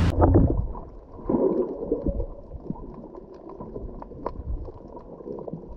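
Underwater sound from a submerged camera: a muffled watery rumble with bubbling and scattered faint clicks. It starts right after a brief tail of boat motor and wind noise at the very start.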